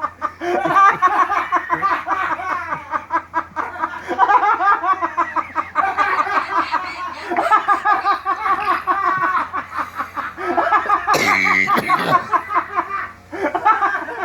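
People laughing hard and without a break, with a short, sharp burst of noise about eleven seconds in.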